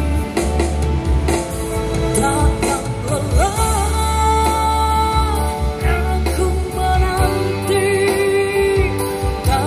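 A song with singing and deep bass played loud through a car's sound-quality-loud (SQL) audio system: Scan-Speak speakers with a Kicker Solo-Baric subwoofer, driven by a Zapco DSP and Zapco amplifiers. It is heard from about five metres outside the car.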